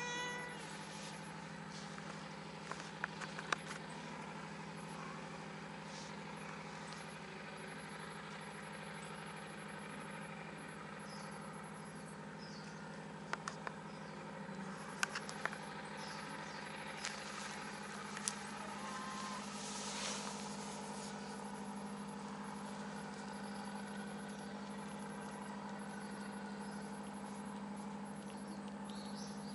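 Steady low mechanical hum, like an engine running, with a few light clicks and taps now and then.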